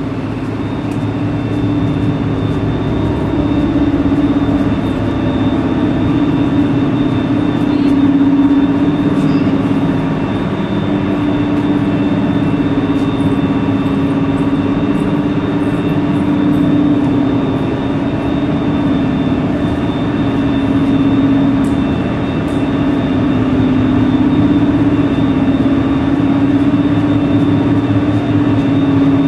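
Heavy industrial plant machinery running: a loud, steady drone with a low hum that slowly swells and eases, and fainter steady whines above it.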